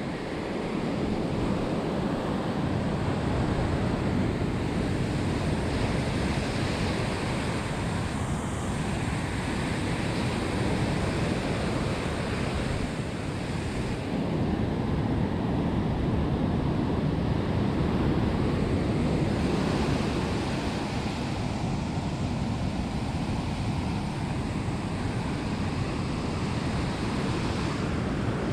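Ocean surf breaking and washing up a sandy beach in a steady roar that swells and eases slowly, with wind on the microphone.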